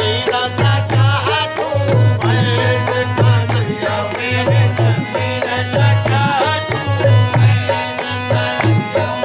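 Qawwali: a singer's melismatic voice over harmonium, with tabla strokes, the bass drum booming low, and hand claps.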